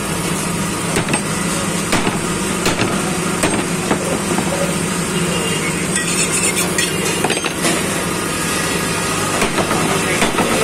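Butcher's long knife cutting beef on a wooden tree-stump chopping block, with several sharp, irregular knocks of the blade on the wood. A steady mechanical hum runs underneath.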